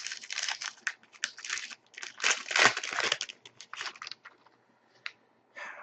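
Plastic trading-card pack wrapper being torn open and crinkled by hand, an irregular crackling that stops about four seconds in, followed by a single light click.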